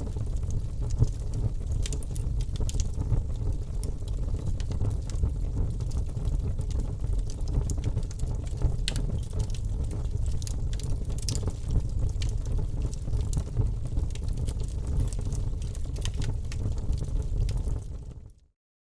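Wood fire crackling in a fireplace: irregular sharp pops and snaps over a steady low rumble of burning. It fades out to silence shortly before the end, then starts again.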